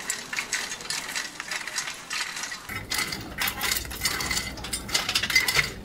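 Hot stones clattering and rattling as a metal rake drags and heaps them over foil-wrapped chickens to bake them. From about halfway through, a low rumble joins underneath.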